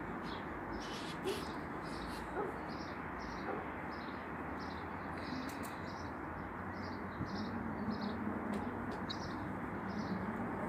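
A bird chirping over and over, short high notes about twice a second, over a steady background noise.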